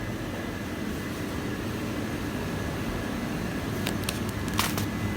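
Steady low rumble of road traffic, with a few sharp clicks about four seconds in.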